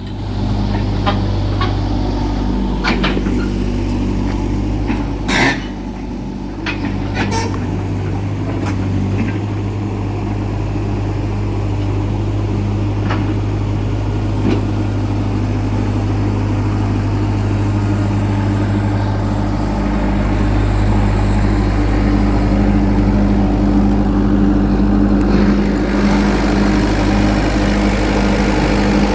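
CAT 308C mini excavator's diesel engine running steadily, with several sharp clicks or knocks in the first ten seconds. It grows a little louder about two-thirds of the way through, and a hiss joins near the end.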